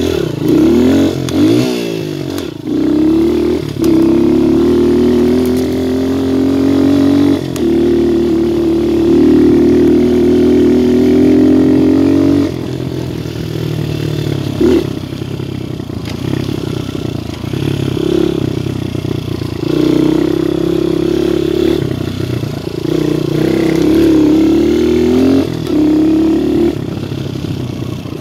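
Viper 150cc dirt bike engine running under way: the pitch climbs over the first few seconds, holds high and steady for several seconds, drops sharply about twelve seconds in, then rises and falls with the throttle for the rest. A few short knocks come through as the bike goes over rough ground.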